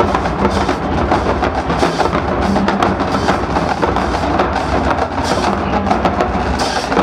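Marching band playing, its drumline of snare and bass drums prominent, with rapid, dense drum strokes throughout.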